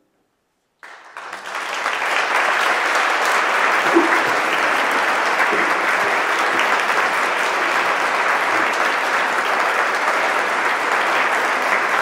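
Audience applauding. After a brief silence the clapping breaks out about a second in, builds quickly, then holds steady and dense before cutting off abruptly.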